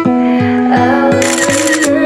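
Background music: a plucked-string melody over a steady beat, with a brief hiss partway through.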